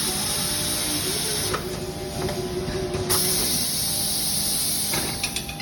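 A loud steady hiss with a low steady hum beneath it; the highest part of the hiss drops away for about a second and a half near the middle.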